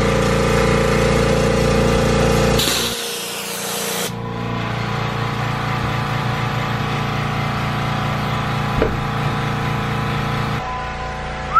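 Gas station air pump running with a steady mechanical hum while a bicycle tyre is inflated through its hose, with a burst of air hissing about three seconds in.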